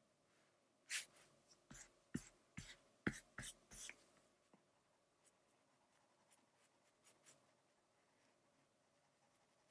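Stylus tapping and stroking on a tablet screen while inking: a quick run of short, sharp strokes between one and four seconds in, then a few faint ticks.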